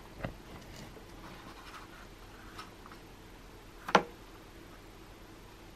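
A sheet of white cardstock handled and laid onto a Cricut cutting mat: soft paper rustling and scraping, with a small tap near the start and a sharper tap about four seconds in.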